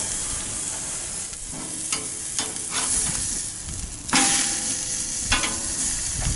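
T-bone steak sizzling hard on the hot grate of a sear box, with a metal spatula scraping and clinking against the grate. About four seconds in, the flipped steak drops back onto the grate and the sizzle surges loudly, then settles.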